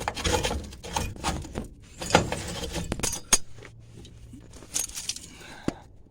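Loose rusted metal parts clanking and rattling: a run of irregular clinks and knocks that thins out and stops near the end.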